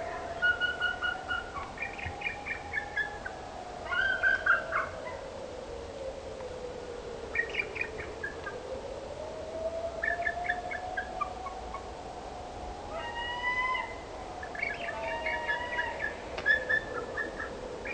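Bird calls: short bursts of rapid chirps, repeated every second or two, over a long, unbroken whistling tone that slowly rises and falls in pitch.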